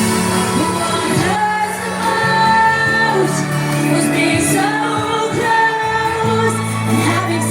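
Live dance-pop music: a woman singing long held notes over a steady bass line and synth backing, played through a concert sound system.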